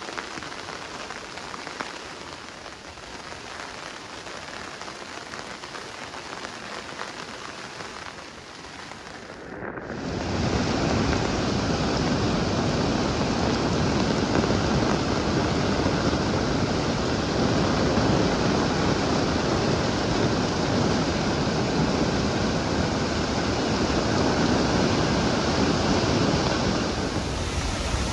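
Steady rain, a hiss that jumps to a louder, fuller rush about ten seconds in and holds there.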